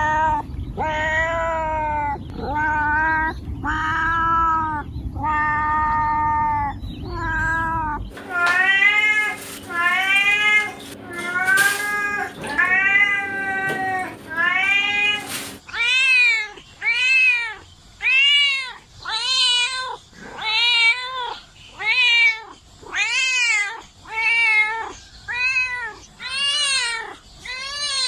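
Domestic cats meowing over and over, a long string of separate meows, each rising then falling in pitch. The recording changes about 8 seconds in and again about 16 seconds in. The first stretch has a low rumbling background, and the last has shorter, quicker meows about one a second.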